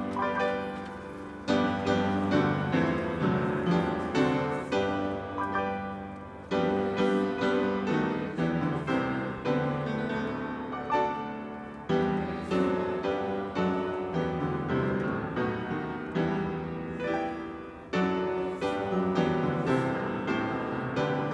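Slow solo piano music: chords struck and left to ring, fading away, with a fresh phrase every few seconds.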